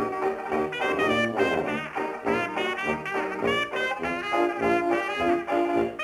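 Brass-led jazz band music, trumpet and trombone playing wavering held notes over a steady beat of about two pulses a second.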